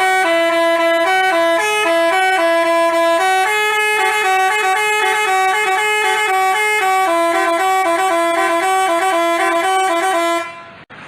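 Telolet basuri musical bus horn playing a quick melody, its notes stepping up and down several times a second, then cutting off shortly before the end.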